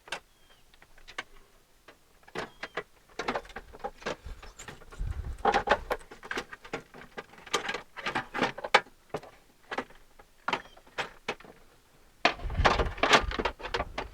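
Scattered clicks, taps and knocks of a new window regulator assembly being worked into a car door shell, metal and plastic parts bumping against the door's sheet metal, with a louder run of clattering and thumps near the end.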